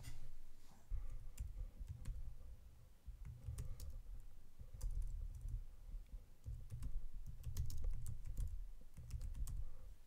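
Computer keyboard typing: a run of irregular key clicks as Backspace is pressed repeatedly and then a folder name is typed out. A low rumble comes and goes underneath the clicks.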